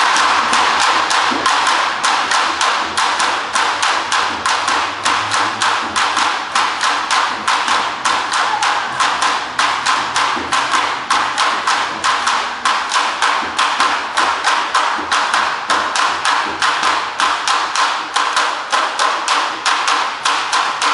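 A troupe of street drummers playing together on large strapped drums, a steady fast beat of sharp, clicking strikes mixed with deeper drum hits.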